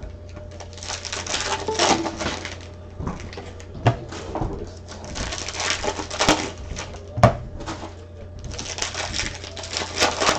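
Packs of Prizm football trading cards being handled: stretches of rustling and sliding as cards and wrappers are worked through by hand, with a few sharp clicks and taps between them, over a low steady electrical hum.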